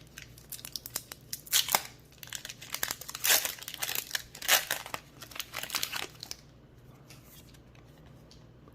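Foil Pokémon booster pack wrapper being torn open and crinkled: a run of sharp rips and crackles that stops about six seconds in.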